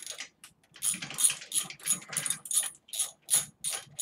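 Hand ratchet clicking in quick back-and-forth strokes, about three a second from about a second in, as 3/8 bolts are run into a motorcycle's front engine mount.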